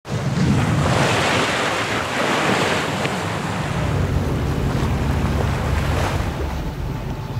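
Water rushing and splashing past a sailing boat's hull, with wind buffeting the microphone in a low rumble that grows heavier after the first few seconds.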